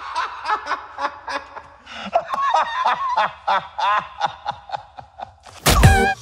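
A man laughing in a long run of short bursts, about four a second, each falling in pitch. Loud music with guitar cuts in near the end.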